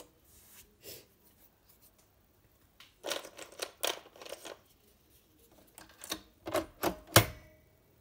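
Nespresso Lattissima Pro capsule machine, just switched on, giving irregular sharp clicks and taps in two clusters, about three seconds in and again about six seconds in, the last click the loudest.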